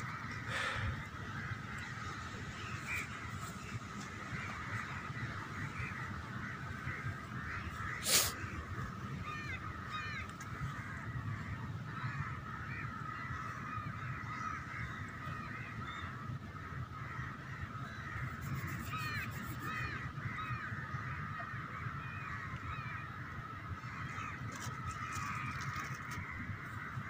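Birds chattering and calling without a break, crows cawing among them, with one sharp click about eight seconds in.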